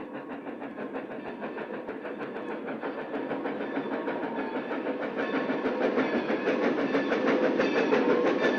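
Steam locomotive approaching, growing steadily louder, with a fast, even rhythmic beat of exhaust and wheels.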